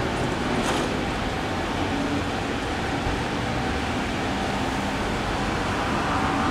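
JR Freight EF210 electric locomotive hauling a container freight train, running in with a steady hum and rumble, with a brief click about a second in.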